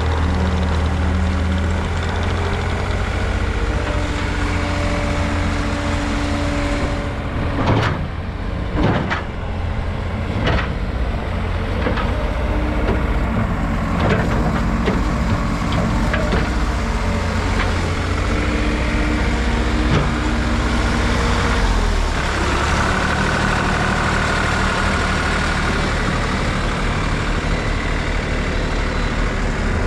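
2005 New Holland LT185B skid steer's diesel engine running steadily, with a string of sharp knocks and clanks between about a quarter and half of the way through. Around two-thirds of the way in, the engine note changes and a faint whine joins it.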